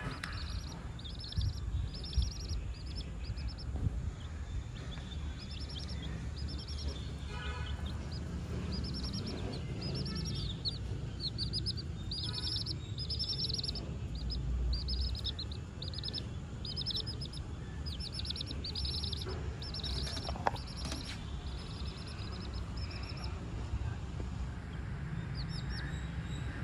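Young chicks peeping: a near-continuous run of short, high, downward-sliding peeps, several a second, over a steady low rumble.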